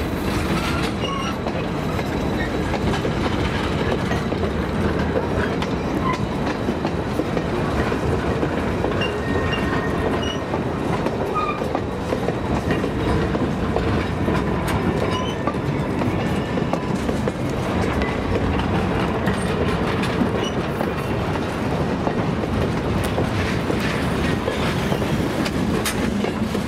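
Excursion train cars and caboose rolling past close by: a steady rumble of steel wheels on rail, with clicks over the rail joints and occasional brief high squeaks from the wheels.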